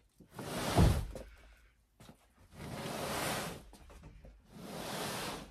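A person breathing hard after straining to push a heavy bin: three heavy exhales about a second long, each separated by a short gap. The first is the loudest and has a low thump in it.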